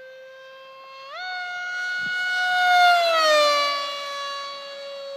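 Motor and propeller of a foam RC speed airplane whining in flight: the pitch jumps up about a second in as the throttle opens, grows loudest near the middle as the plane passes, then slides lower as it moves away.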